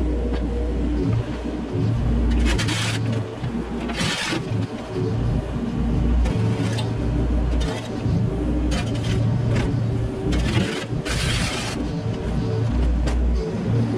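Mini excavator's diesel engine running steadily under work, with several short bursts of scraping and rattling as the bucket works debris in the yard.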